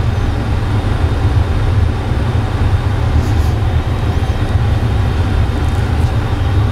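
Steady low rumbling noise with no distinct events, like a running fan or air handler.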